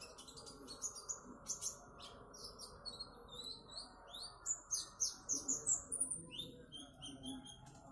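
Kolibri ninja sunbird singing a fast, stuttering "trotol" song: rapid runs of high, sharp chirps and quick rising and falling notes, over a steady background hiss.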